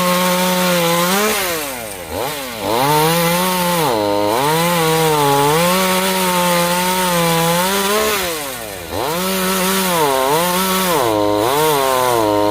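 Two-stroke chainsaw running at high revs while cutting wood. Its pitch sags again and again as the chain bites, and twice drops right down toward idle before revving back up.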